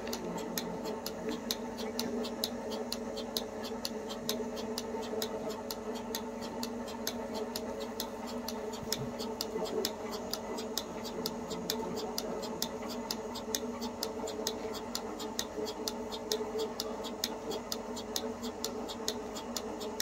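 Portable milking machine running on a cow: the pulsator clicking evenly about three times a second over the steady hum of the vacuum pump.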